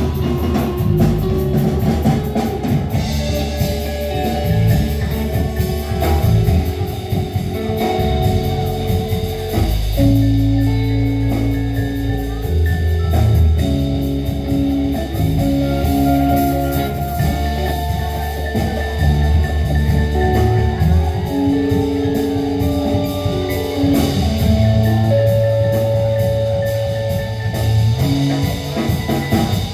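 Live band playing an instrumental jam: electric bass and electric guitar with a mallet keyboard over a steady drum kit beat, with long held notes and no singing.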